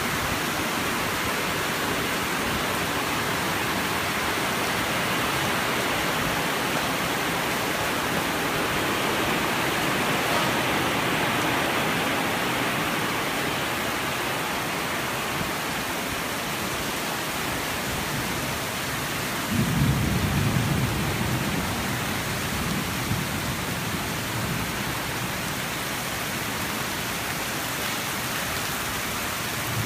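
Torrential rain pouring down in a steady, heavy hiss. About two-thirds of the way in, a low rumble starts suddenly and lasts a few seconds.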